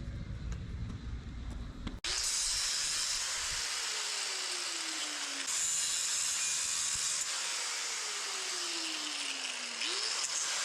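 Power sanding on the mini chopper's metal frame: a steady hiss of abrasive on metal that starts abruptly about two seconds in, with a faint tone that slowly falls twice.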